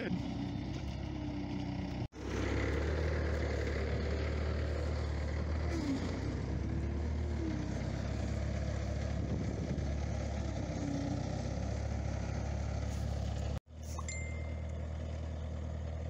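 Skid steer loader's engine running steadily under load, in three stretches separated by two brief gaps of silence, about two seconds in and near the end.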